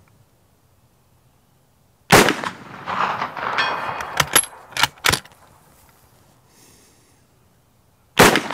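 Two shots from a Mauser Model 71/84 11mm bolt-action service rifle, about six seconds apart. The first comes about two seconds in and rolls on in a trailing echo, followed by several sharp metallic clacks as the bolt is worked. The second shot comes near the end.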